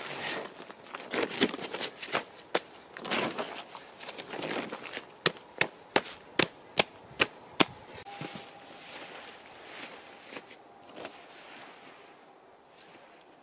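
A tarp wrapped around a load of clay rustling and crinkling as it is folded and pressed down by hand, followed about five seconds in by a quick run of about seven sharp clicks, after which the handling sounds grow fainter.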